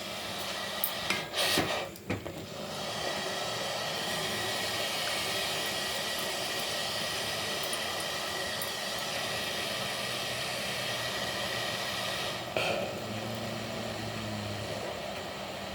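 A few sharp clinks of metal kitchenware, then a steady hiss; a faint low hum joins near the end.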